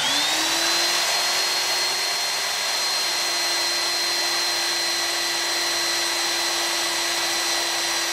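Small belt sander motor spinning up to speed about as it begins, then running steadily with a steady whine. Its belt is sanding the rim of a homemade wooden band saw wheel held against it at an angle, putting a slight crown on the wheel.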